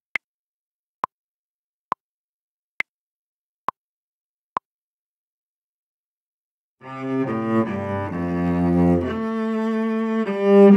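A metronome-style count-in: six evenly spaced clicks a little under a second apart, the first and fourth higher-pitched, giving two bars of three beats. About seven seconds in, an instrumental music extract for dictation begins, with sustained low-pitched notes.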